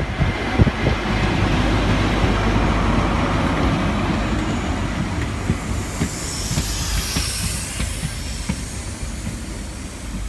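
GWR Class 43 High Speed Train passing close along a station platform: the power car goes by first, then a steady rush and rumble of coaches, with a few sharp knocks in the first second. A high hiss rises between about six and eight seconds in, and the sound eases toward the end.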